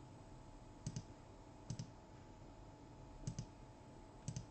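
Faint computer clicking: four sharp double clicks, each a quick pair, spaced roughly a second apart.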